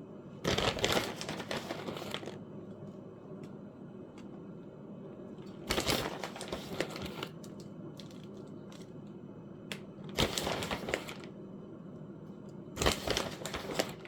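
Shredded cheese being handled out of its package and spread over a pizza, in four short bouts of handling noise a few seconds apart.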